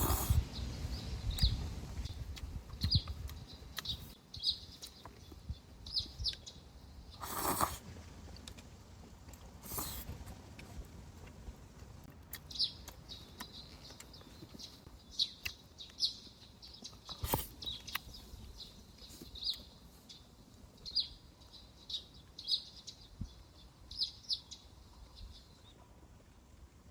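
Small birds chirping, short high calls repeated every second or so, with a few brief louder rustling or clattering sounds, about 7, 10 and 17 seconds in.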